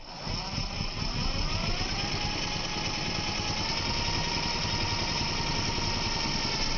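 Bosch GDR 120-Li 12V cordless impact driver running, its motor rising in pitch over the first couple of seconds and then running steadily.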